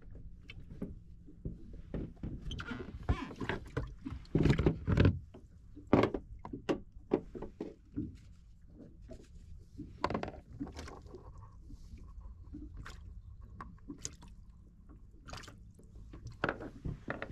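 Water sloshing and gurgling against a small boat's hull, with scattered clicks and knocks from hands handling bait and fishing tackle on the deck.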